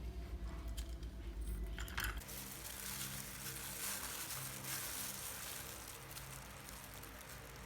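Kitchen sounds: a clink about two seconds in as a low hum cuts off, then quiet, steady sizzling of hot food that slowly fades.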